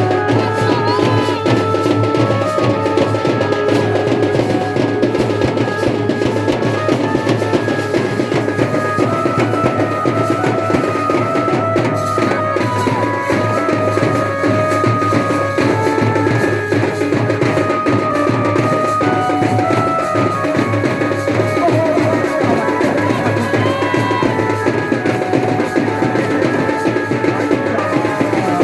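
Drum-led music: fast, dense drumming with a melody of held notes stepping from pitch to pitch over it.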